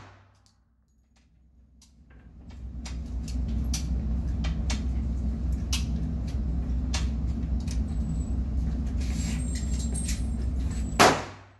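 A single .45 pistol shot about 11 seconds in, loud and sharp with a short echo. Before it there is a steady low hum with faint scattered clicks.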